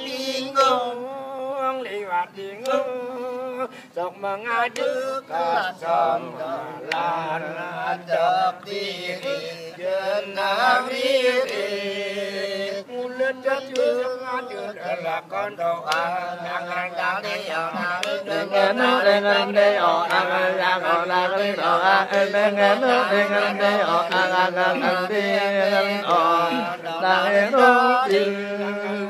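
Balinese cekepung: a group of men's voices chanting and singing together in a continuous, many-voiced flow, getting somewhat louder past halfway.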